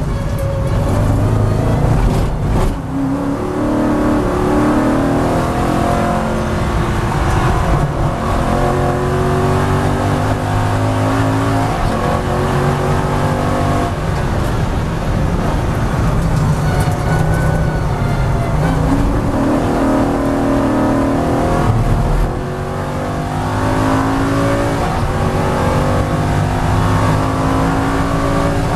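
Aston Martin N24 race car's 4.3-litre V8 heard from inside the cockpit, accelerating hard: the engine note climbs and drops back several times as it changes up through the gears. There is a short dip in level about three-quarters of the way through before it pulls again.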